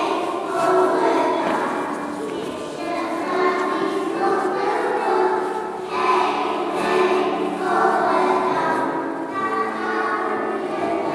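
Children's choir singing together in a church.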